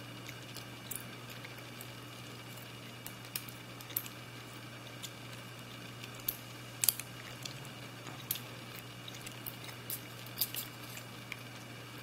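Small metallic clicks and taps of a lock pick and tension wrench working the pins inside a pin-tumbler padlock's keyway, coming at irregular moments, with the loudest pair close together about seven seconds in. A steady low hum runs underneath.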